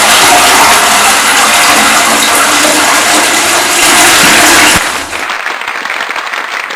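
Loud, steady rushing noise that cuts off suddenly about five seconds in, leaving a quieter crackling hiss.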